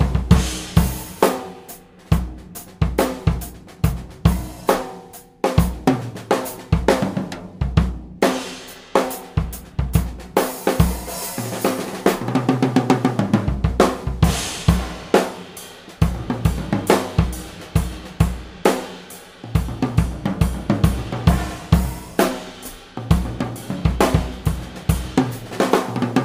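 1990s Slingerland Artist drum kit played in a steady beat with fills: bass drum, snare and toms under ride and hi-hat cymbals.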